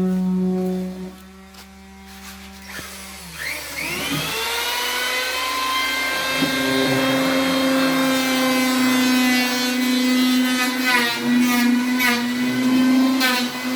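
A motor running with a steady whine. It slows and drops away about a second in, spins back up from about three seconds in, and settles into a steady, higher-pitched run.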